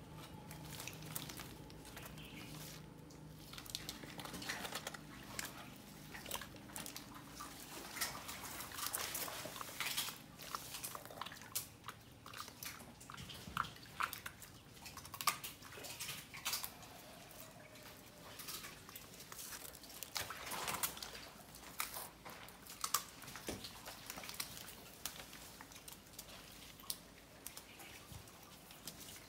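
Young crocodiles crunching snails in their jaws: irregular sharp cracks and clicks of shells breaking as they chew.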